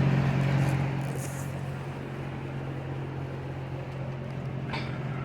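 2011 Toyota Tacoma's 2.7-litre four-cylinder engine idling with a steady hum. The engine has a cylinder 4 misfire that persists after a new ignition coil and spark plug. A faint click comes near the end.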